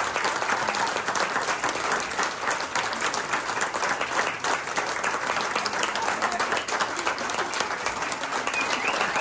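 A small audience applauding with steady hand clapping.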